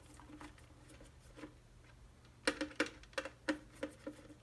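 Light metallic clicks and taps of a screwdriver working the garbage disposal's ground screw loose. It is quiet at first, then there is a quick run of clicks from about halfway in.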